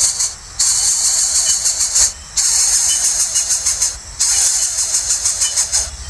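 Coucal nestlings begging with a loud, steady hiss in stretches of about a second and a half, broken by short pauses.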